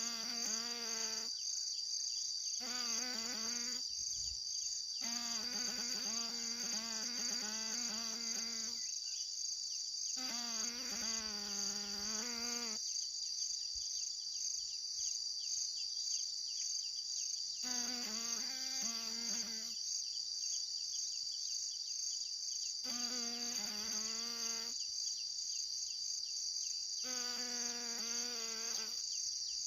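Steady, high-pitched trilling of insects such as crickets. Over it, a wavering pitched call or voice comes and goes in stretches of one to three seconds, about eight times.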